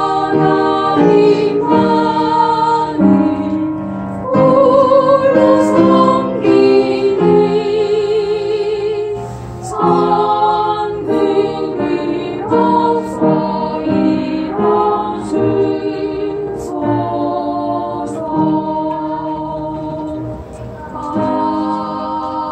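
Small mixed church vocal ensemble, mostly women with one man, singing a Korean hymn in parts. The notes are held with vibrato, in phrases with short breaks, and there is a brief breath pause near the end.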